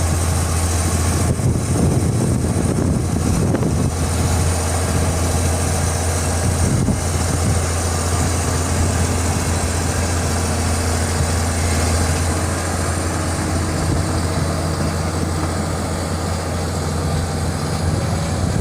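Heavy construction-machine engine running steadily with a constant low hum.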